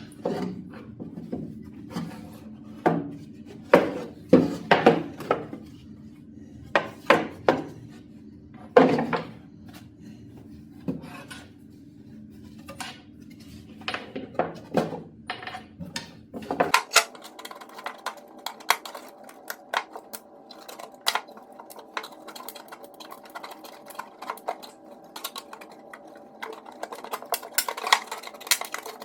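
Hand work on an old plywood hatbox: scattered sharp knocks and clinks, loudest in the first third, over a steady hum. The background changes abruptly just past halfway, and quicker, lighter clicks follow.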